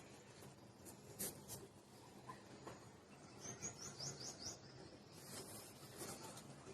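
Faint outdoor quiet with a bird giving a quick run of about six high chirps a little past the middle. There are a few soft clicks around it.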